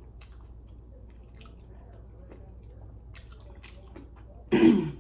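Close-miked mukbang eating: faint wet chewing and smacking clicks of someone eating seafood boil in sauce, then a short, loud vocal sound near the end.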